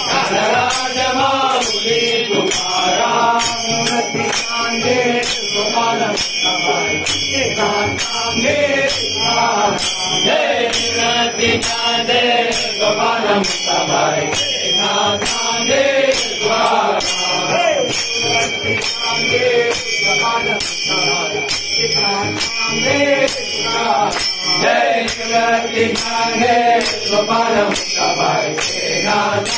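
Group of men chanting a Hindu devotional hymn during temple aarti, accompanied by brass hand cymbals and hand bells struck in a steady beat.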